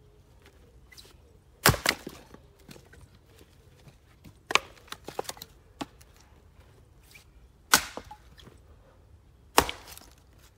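An axe splitting black locust firewood on a chopping block: four sharp strikes a few seconds apart, each followed by a few lighter knocks.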